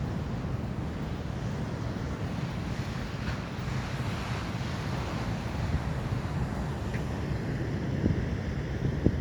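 Atlantic ocean waves washing onto the shore, one swelling hiss of surf about halfway through, with wind buffeting the microphone in a few low thumps near the end.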